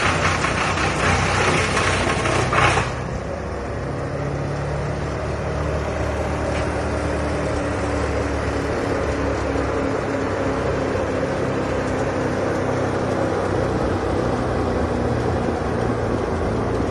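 Bandit 255XP wood chipper's engine running steadily, with a louder hiss over it for the first three seconds or so.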